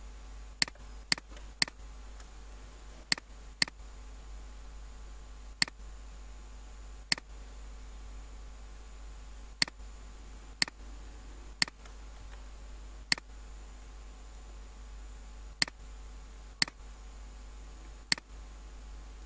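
Computer mouse button clicking: about fourteen single sharp clicks at uneven spacing as anchor points are placed with a pen tool, over a steady low hum.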